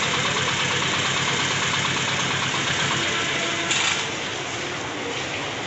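A vehicle engine idling steadily, with a dense running noise that drops a little in level about four seconds in.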